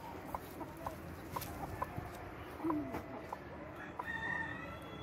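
Chickens clucking softly while dust bathing, with small scattered ticks and scratches. A low, sliding cluck comes a little before the middle, and a long, higher, steady call begins near the end.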